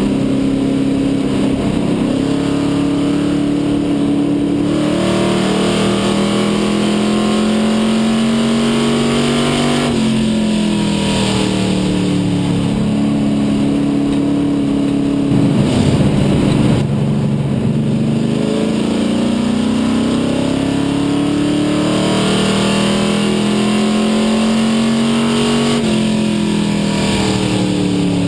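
Dare Stock race car's engine heard from inside the cockpit at racing speed. Its note climbs slowly down the straights and drops as the driver lifts for the turns, about ten seconds in and again near the end. There is a brief louder, rougher stretch midway.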